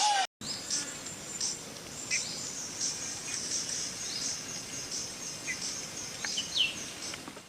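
Birds chirping, many short calls and quick glides, over a steady outdoor background hiss.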